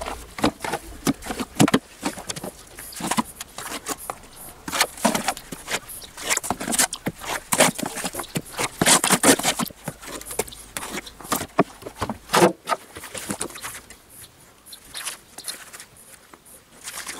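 Bricks and mortar being worked by hand on top of a brick wall: a run of irregular scrapes and sharp knocks as the bricks are set and pressed into the mortar, thinning out in the last few seconds.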